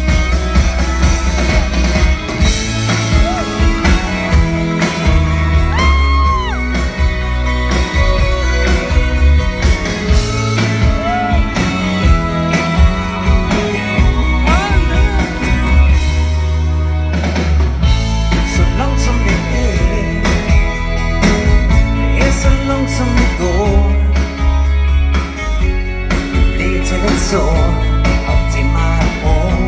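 Live pop-rock band playing a song in concert, with a sung lead vocal over electric bass, drums, keyboards and guitars, heard through a phone from the audience.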